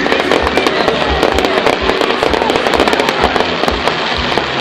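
Fireworks display: a dense run of rapid crackling bangs, over a string of deeper booming thumps.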